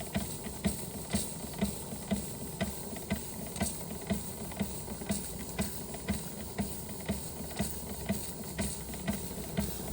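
Josef Falk 456/1S toy steam engine running steadily, a regular puff about twice a second over a constant steam hiss.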